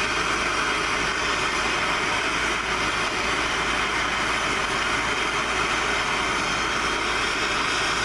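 MAPP gas hand torch burning with a steady hiss, its flame held on the bottom of a padlock.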